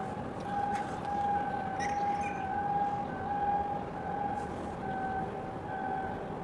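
A steady siren-like alarm tone that swells and fades, with a fainter higher tone pulsing on and off about once a second.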